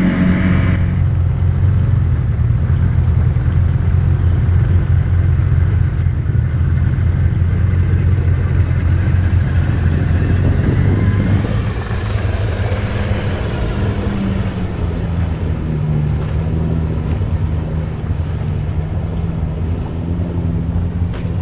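Off-road vehicle engine running while under way, a steady low drone. About twelve seconds in the sound drops a little and a higher, wavering engine note takes over.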